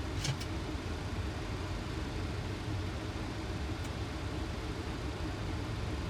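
Steady flight-deck noise of a Boeing 737 on final approach with gear down and flaps 30: a constant rush of airflow and engine drone with a low hum. Two quick clicks come just after the start, and a faint tick about four seconds in.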